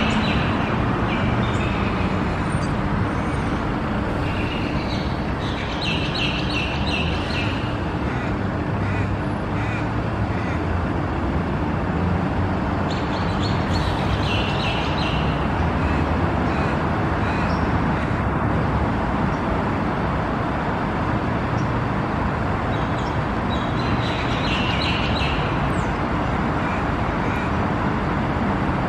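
Steady road-traffic noise from a busy road, with three short bursts of high-pitched bird chatter.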